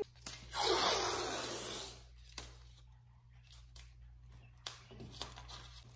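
Blue painter's tape being pulled off its roll with a ripping hiss lasting about a second and a half, then faint clicks and rustles as the tape is pressed down along the baseboard.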